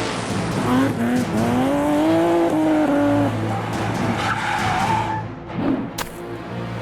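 Toy-vehicle sound effect of a car engine and skidding tyres, a whine that rises and then falls, over background music. A sharp click comes about six seconds in.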